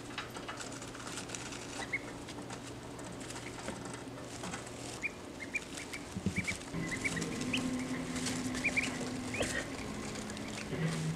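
Ducklings shifting about in pine-shaving bedding, a steady patter of small rustles and ticks, with a scatter of short, soft, high peeps, most of them in the second half.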